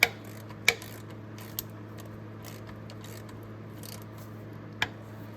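A few sharp clinks of a hand socket and wrench against metal while a bolt is being snugged up. The loudest come at the start and about a second in, with another near the end, over a steady low hum.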